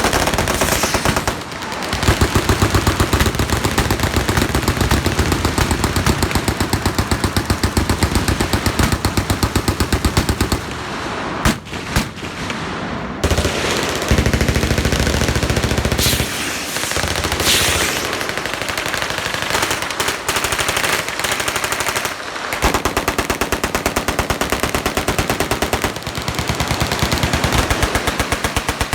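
Many machine guns firing at once in continuous overlapping automatic fire. It thins out briefly a few times, first about eleven seconds in.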